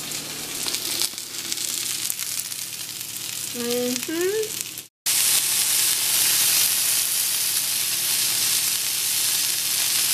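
Steak searing in a hot nonstick frying pan, a steady sizzle. After a brief break about five seconds in, the sizzle is louder and brighter.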